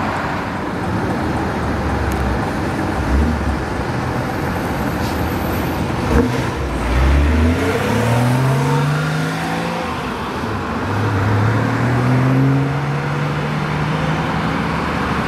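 Air-cooled Porsche 911 (993) flat-six accelerating away hard: engine pitch rising through one gear, dropping briefly at an upshift about two-thirds of the way through, then rising again in the next gear, over steady traffic noise.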